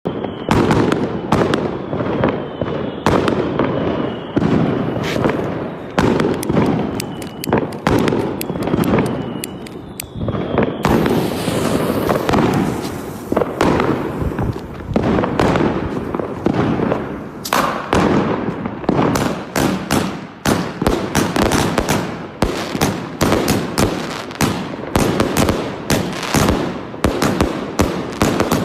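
A 96-shot firework cake firing in rapid succession: a continuous stream of launch thumps and aerial bangs, several a second, with short whistling tails on shots through the first ten seconds or so.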